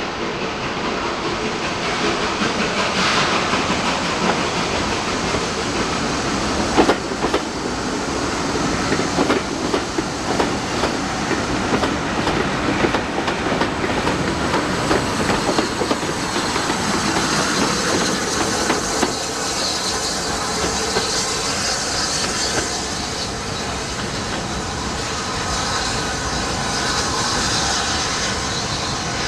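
Steam-hauled train, a locomotive numbered 34027, moving slowly through the station: wheels clicking over the rail joints with some hissing steam, and a sharp clank about seven seconds in.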